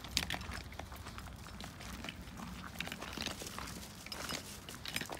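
Footsteps crunching on a gravel path, an uneven run of short crunches.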